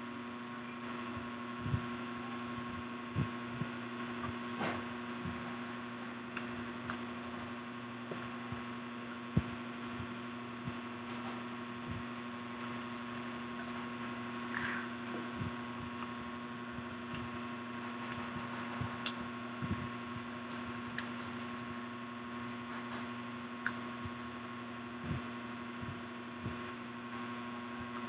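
Eating by hand: scattered soft clicks and knocks as fries and fried food are picked up and chewed, over a steady electrical hum.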